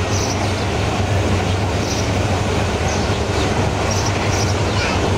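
Diesel locomotive engine running with a steady low drone, with faint light clanks now and then.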